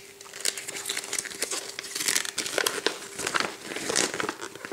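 Plastic packaging crinkling and rustling as it is handled, with scattered light clicks and taps.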